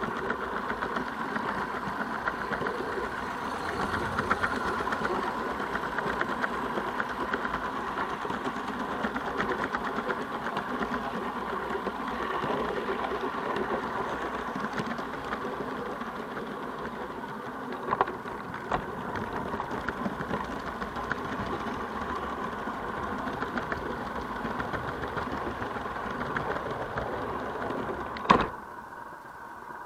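Live-steam garden-railway model locomotive running, a steady rapid chuffing mixed with the clatter of the wheels on the track, with a couple of sharp clicks about two-thirds of the way through. Near the end a sharp knock, and the running noise drops away as the train comes to a stand.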